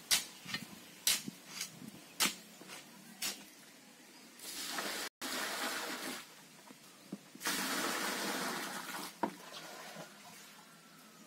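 A steel hoe striking and scraping into a sand-and-cement mix, about two strokes a second, then water poured onto the pile in two spells of a couple of seconds each while the concrete-block mix is being wetted.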